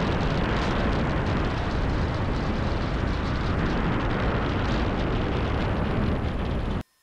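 Steady, loud wind rush buffeting a microphone mounted outside a Cessna 172M in flight, mixed with the plane's engine and propeller. It cuts off suddenly near the end.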